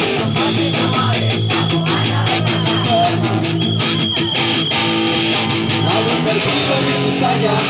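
Live rock band playing an instrumental passage, with guitars, bass and a steady drum beat that drops away about six seconds in.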